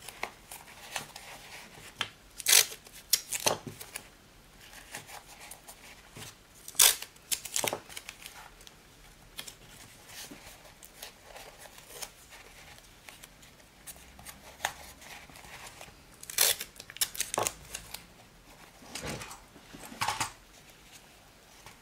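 Adhesive tape pulled off the roll and torn into short strips, several brief rasps, mostly in pairs a few seconds apart, with quieter handling and rubbing as the strips are pressed down onto the fabric-covered board.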